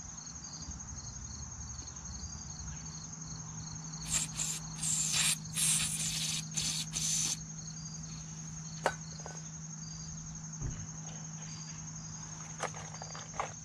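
A series of short hissing sprays from an aerosol contact cleaner fired through a straw nozzle into a carburetor's small passages, blowing them clear. The sprays start about four seconds in and last around three seconds. Crickets chirp steadily throughout over a low hum.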